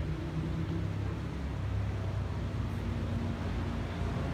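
Steady low engine rumble with a faint hum of a few held tones, at an even level throughout.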